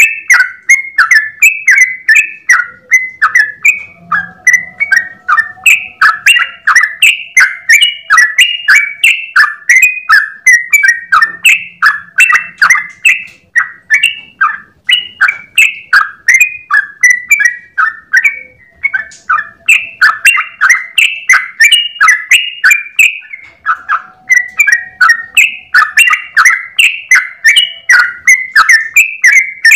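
Yellow-vented bulbul (trucukan) singing a long, unbroken run of quick chirping phrases, several notes a second, in the rapid non-stop 'ropel' style.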